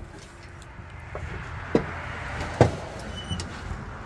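Steel mower deck of a John Deere D130 ride-on mower being shifted and tilted on a wooden workbench: a scraping hiss with two knocks about a second apart.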